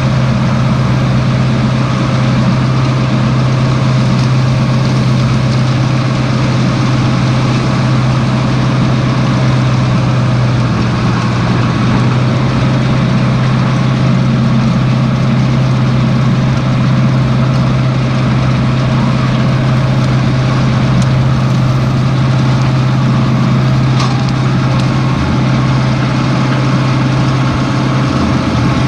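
Tractor engine running steadily at working revs with a constant low drone, powering a fixed roller chamber round baler picking up barley straw.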